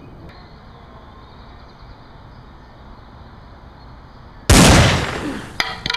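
A single loud gunshot blast about four and a half seconds in, fading over about a second, followed by a few short sharp clicks. Before the shot there is only a low steady hiss.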